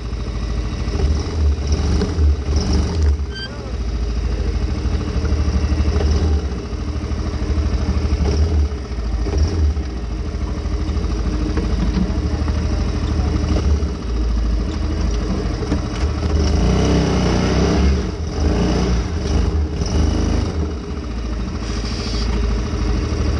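ATV engine running as the quad is ridden, its revs rising and falling with the throttle.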